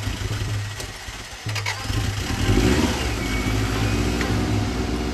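Subaru Impreza WRX GC8's turbocharged flat-four cranking on the starter, then catching about two seconds in with a brief rev and settling into a steady idle. This is its first start after half a year sitting.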